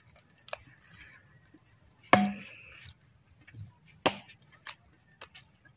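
Close-up mouth sounds of a man chewing a mouthful of flowers: scattered wet clicks and smacks, with a louder smack and a brief hum of the voice about two seconds in.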